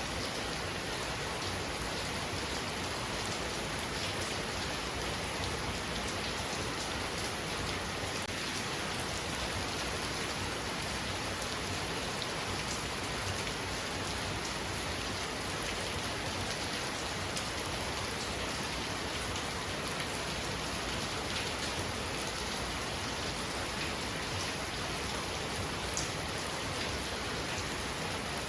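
Heavy rain falling steadily: a dense, even hiss of rain with many small drop impacts scattered through it.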